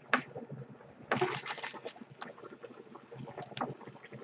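TaoTronics handheld fabric steamer with its water boiling and bubbling inside. There are handling clicks and a short rushing burst about a second in.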